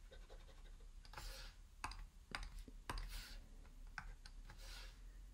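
Faint clicks and a few short scratchy strokes of a stylus on a drawing tablet, as a handwritten figure is rubbed out and rewritten.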